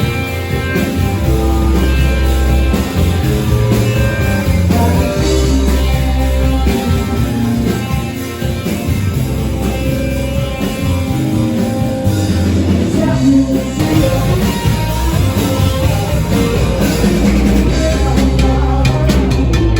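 Music track with guitar and singing, playing loudly and steadily.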